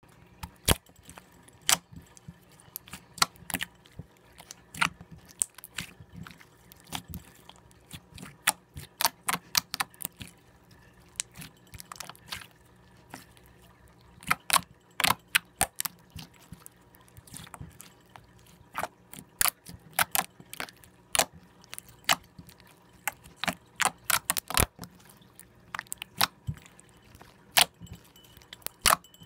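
Soft, glossy slime being squeezed, folded and poked by hand, giving off irregular sharp clicks and pops, often in quick clusters of several.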